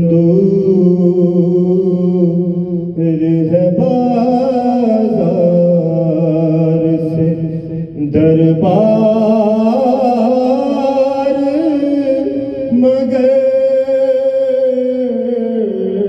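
A man's solo voice reciting an Urdu soz-o-salam, a mournful devotional chant, sung into a microphone. He holds long notes that glide slowly between pitches, in phrases of a few seconds, with a short breath about eight seconds in.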